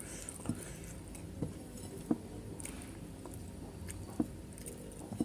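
A person chewing and eating food, with a few sharp, irregularly spaced clicks.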